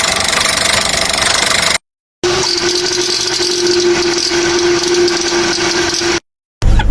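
Two short recordings of abnormal car noises, each cut off abruptly. The first is a steady rushing noise with a faint whine. After a short silent gap about two seconds in, the second is a car running with a steady droning hum.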